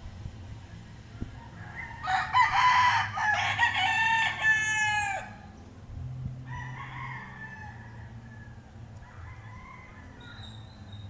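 Game rooster crowing close by: one loud crow of about three seconds, starting about two seconds in and ending on a falling note. Fainter rooster calls follow.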